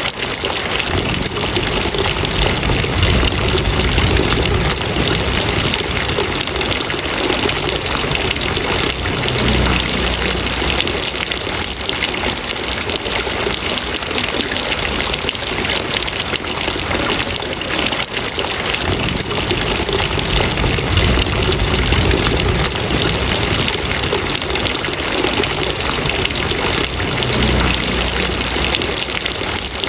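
Steady rain pouring, a dense even hiss of falling water with a low rumble that swells and fades every few seconds.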